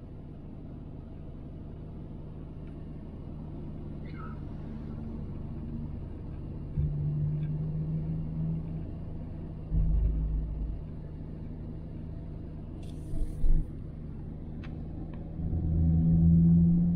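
Car engine and road noise heard from inside the cabin while driving in city traffic: a steady low hum. A dull low thump comes about ten seconds in, and a short sharp click a few seconds after it.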